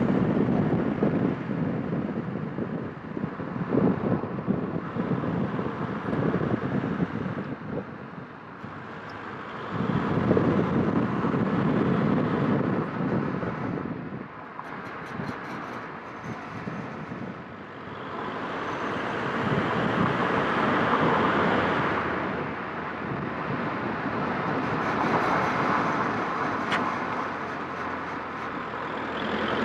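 Seat León FR 1.9 TDI on the move, with road and wind noise swelling and fading, carrying an unexplained noise from one of its wheels; the owner has ruled out the brakes and the brake disc's dust shield.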